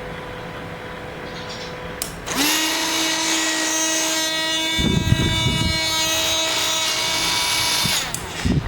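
Electric drilling machine switched on about two seconds in: its motor spins up quickly to a steady whine and runs for about six seconds, with a rough grinding noise for about a second midway, then switches off near the end.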